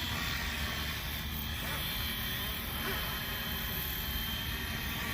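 FlyWing FW450 V3 electric RC helicopter in flight, its motor and rotor blades giving a steady whine with several held tones.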